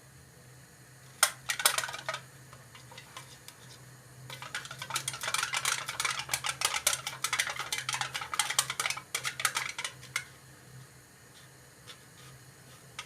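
Small aluminium dessert moulds being greased by hand, giving two sharp clinks a little over a second in, then a long run of quick crinkling rattles and scrapes as fingers work inside the thin metal and the moulds knock together.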